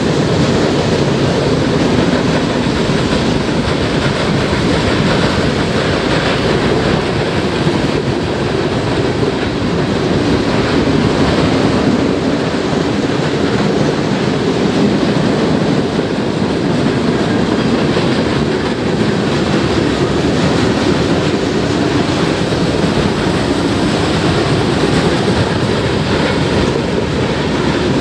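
Freight cars of a Union Pacific train rolling past close by: a loud, steady rumble of steel wheels on rail as the cars cross a railroad diamond crossing.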